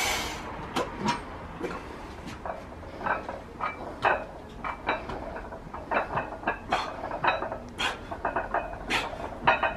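Iron weight plates clinking and rattling on a loaded barbell during a set of heavy chest-press reps: short, irregular metallic clinks, several a second.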